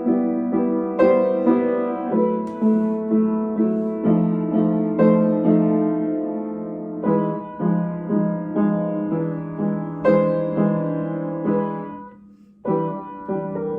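Solo piano playing a lyrical piece, individual notes and chords struck at an unhurried pace. The playing breaks off about twelve seconds in and starts again a moment later, as a passage is restarted in practice.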